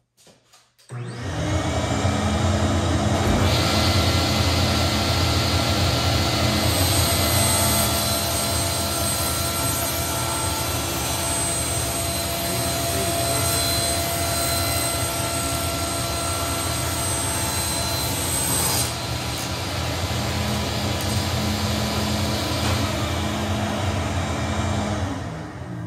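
A table saw and its dust collector are running loud and steady after starting up about a second in. The saw blade rips along the rough edge of an oak board to make it straight. The cutting adds a hiss to the running noise for about ten seconds in the middle. Both machines wind down near the end.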